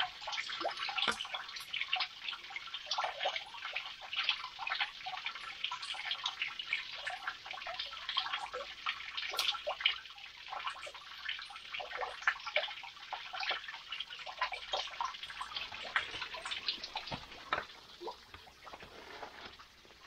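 Water trickling and dripping from a rock overhang into a shallow pool: a thin splashing spill with many irregular drops, quieter over the last few seconds.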